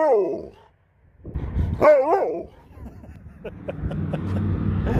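Alaskan malamute 'talking': a short howling woo-woo call at the start and another about two seconds in, each bending up and down in pitch. After that comes a low rumble with a few light ticks.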